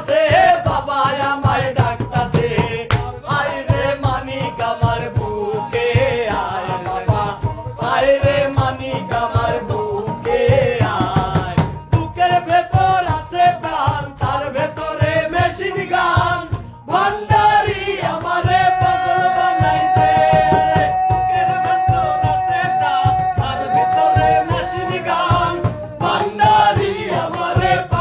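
A song: a man singing over a steady drum beat, with one long held note past the middle.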